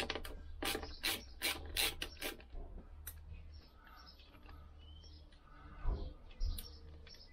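Metal engine parts being handled and refitted on a Lambretta gearbox: a quick run of sharp metallic clicks over the first two seconds or so, then light rubbing and two knocks near six seconds.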